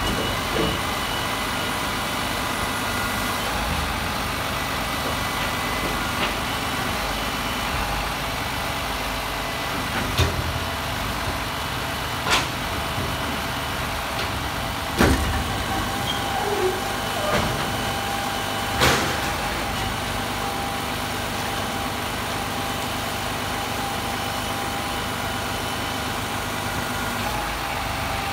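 Garbage truck's diesel engine running steadily while its truck-mounted Hiab crane works, with several sharp knocks, the loudest about 10, 12, 15 and 19 seconds in.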